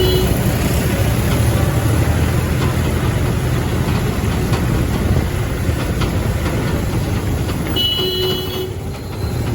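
Wind buffeting a helmet-mounted phone microphone over the motorcycle's engine and road noise while riding in heavy traffic: a loud, steady rushing rumble. A short, high tone from the traffic sounds briefly about eight seconds in.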